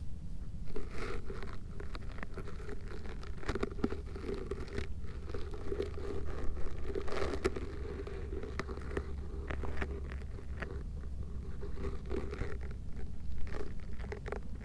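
A hand stroking a cat's fur close to the microphone, with scratchy rustling and crunching of dry grass and a few small clicks.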